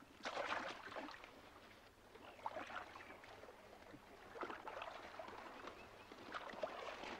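Faint splashes and swishes of a wooden paddle dipping and pulling through calm water as a canoe is paddled, one stroke about every two seconds.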